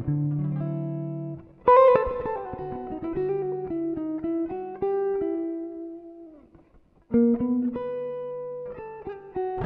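Background music: a slow plucked guitar melody, single notes and chords ringing and fading. It dies away almost to nothing about two-thirds of the way through, then starts again.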